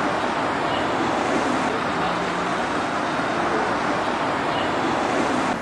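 Steady, even rush of outdoor background noise with no single source standing out.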